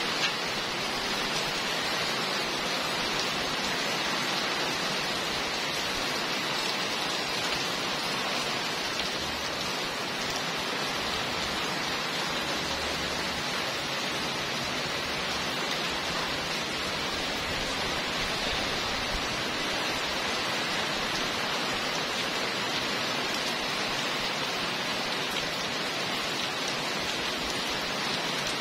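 Heavy rain pouring steadily onto brick paving and parked cars, a constant even hiss.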